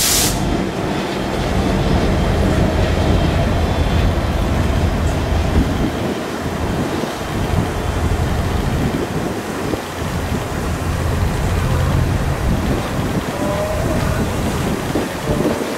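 Freight cars of the CPKC Holiday Train rolling past at close range: a steady rumble of steel wheels on the rails with irregular clickety-clack knocks. Faint wavering higher tones join near the end.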